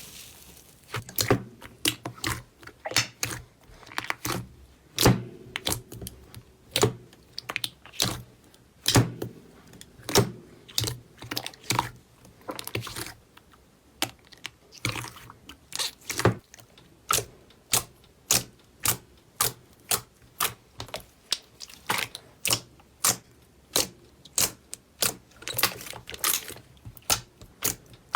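Slime being pressed and poked, popping its trapped air with sharp clicks at about one and a half to two a second.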